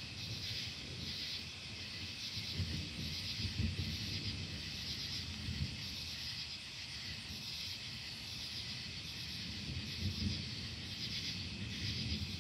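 Faint, low rolling thunder from a distant storm, swelling about three seconds in and again around ten seconds. Under it, night insects chirp steadily in a pulsing rhythm.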